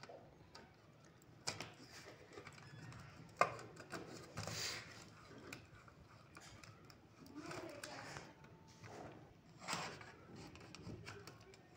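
Handling noise from an LED panel light's casing being fitted back on by hand: light plastic clicks, one sharp tap about three and a half seconds in, and short spells of the cover rubbing as it is seated.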